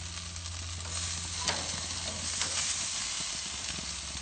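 Skewered pork, longanisa sausages and prawns sizzling on a hot barbecue grill, a steady hiss with a light click about a second and a half in.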